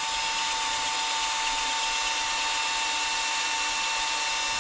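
Power drill running steadily with a steady whine, spinning a brake cylinder hone whose stones scour the bore of a 1940 Packard front wheel cylinder to clean out staining.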